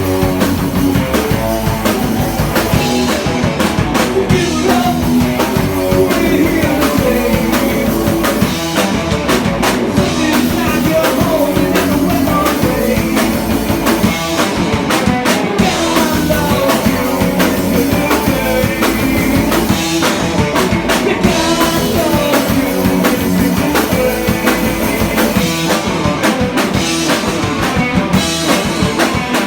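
Live heavy metal band playing: electric guitars and a drum kit with a singer's voice over them, recorded on a phone from the crowd.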